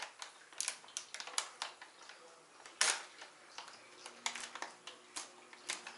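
Plastic sugar pouch crinkling in irregular sharp crackles as it is handled and opened at its top.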